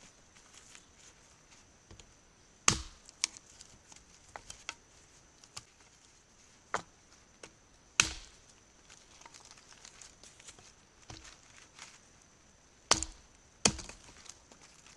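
Small axe chopping into a dry, dead fallen log: four sharp chops at uneven intervals, the last two close together near the end, with lighter knocks in between.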